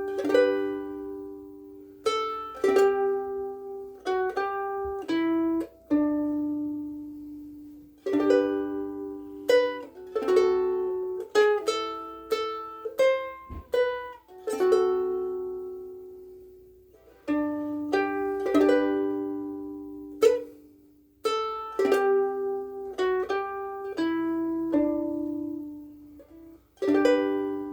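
KoAloha Pineapple Sunday ukulele, with pine back and sides and UkeSA strings, played solo. Chords and picked notes ring out and fade in short phrases, with brief pauses between them.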